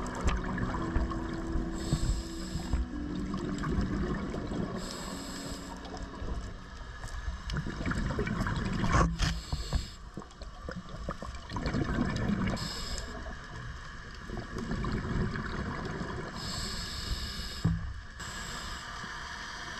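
Muffled underwater noise heard through a camera housing while diving, with short hissing bursts every few seconds and one sharp knock about nine seconds in.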